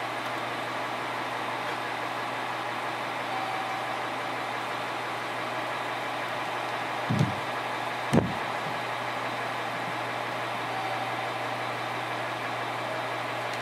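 Running sound inside the motor car of a JR Kyushu 817 series electric multiple unit, KuMoHa 817-518: a steady rumble of wheels on rail with a low hum. About seven seconds in come two low thumps a second apart.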